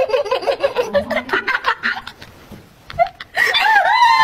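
Young women giggling and laughing in quick bursts, dying down about two seconds in, then a high voice speaking near the end.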